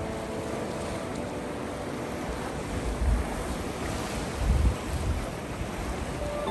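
Sea surf washing on the shore with wind buffeting the microphone, giving low gusty rumbles about three and four and a half seconds in.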